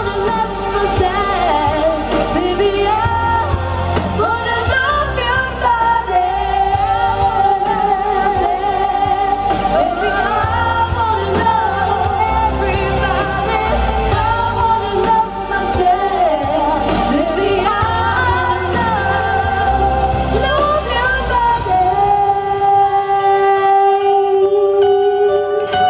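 Music with a singing voice over a heavy pulsing bass beat. About 22 seconds in the beat drops out, leaving long held notes.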